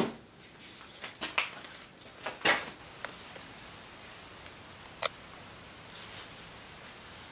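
Potatoes being handled and sorted, giving a string of knocks and rustles. The loudest knock comes about two and a half seconds in, and a sharp click comes near five seconds.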